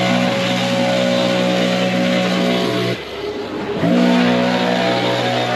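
Gas leaf blower running at full throttle, engine tone over a loud rush of air. About three seconds in the throttle eases off for under a second, then opens back up.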